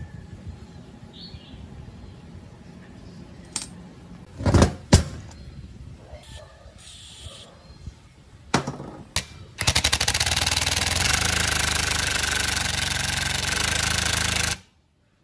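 A few sharp metal knocks, then about five seconds of loud, rapid hammering rattle from a power impact tool driving the screw of a two-jaw gear puller to draw the pulley off an old compressor motor's shaft. It cuts off suddenly.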